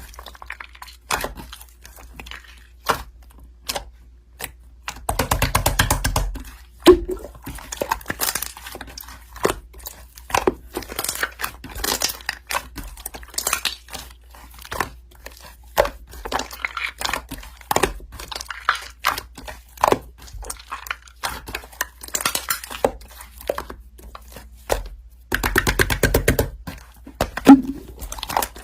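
Slime being pressed and squished by hand, giving irregular sticky clicks and pops, with two denser crackling stretches about five seconds in and near the end.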